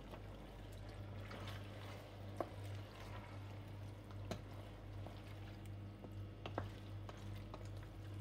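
Wooden spoon stirring chopped squid in a stainless steel pan, the pieces squelching wetly as they cook in their own released liquid. The spoon knocks against the pan sharply three times, with a few lighter clicks, over a steady low hum.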